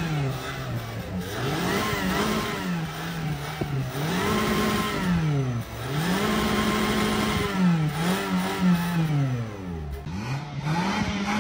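Toyota Camry's engine revved repeatedly while parked, its pitch climbing, holding briefly at the top and dropping back about every two seconds, blowing rainwater out of the exhaust pipe.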